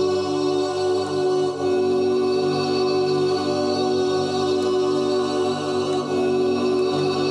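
Copies of one sampled, sustained sung vocal note, tuned to different pitches and layered into a steady, organ-like choir chord; a lower note joins right at the start and the chord then holds.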